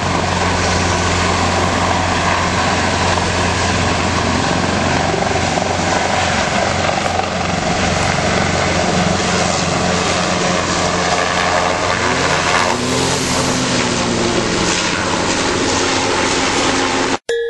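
Helicopter flying low overhead, a steady low rotor beat with dense engine and blade noise. About three-quarters of the way through, a motorcycle engine revs up and down under it. The sound cuts off abruptly just before the end.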